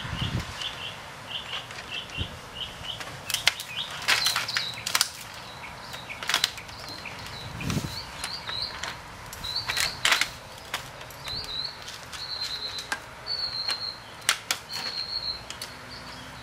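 Irregular clicks and knocks of the Asus G1S laptop's plastic and metal parts as the display is fitted back onto the base. Under them a small bird is chirping: a quick, even run of short chirps at the start, then higher, scattered chirps through the rest.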